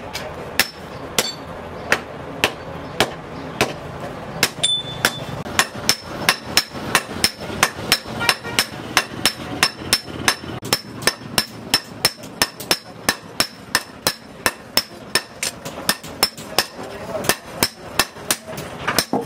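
Hammer blows on a red-hot steel blade on an anvil: hand forging, a hand hammer and a striker's sledgehammer taking turns. The blows come a little under two a second at first, then settle about four seconds in into a fast, even rhythm of about three a second, each with a short metallic ring.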